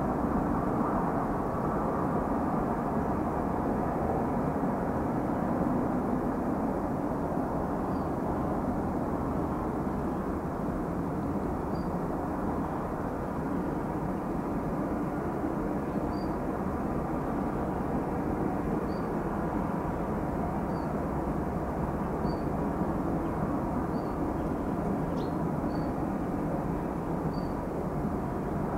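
Tupolev Tu-204 airliner on final approach, its jet engines a steady, even rumble from a distance. Faint short high chirps come every second or two from about a third of the way in.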